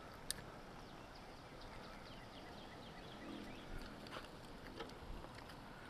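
Faint clicking of a spinning fishing reel being cranked to bring in line, with one sharper click at the start and light ticks after it.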